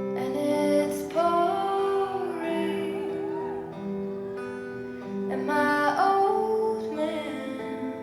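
Routine music: a slow song with a female voice singing over plucked acoustic guitar and sustained accompaniment.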